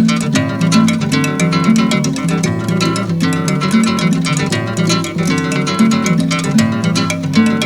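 Recorded music played from a vinyl record: a busy rhythm of quick percussion strikes over plucked, guitar-like string notes and a moving bass line.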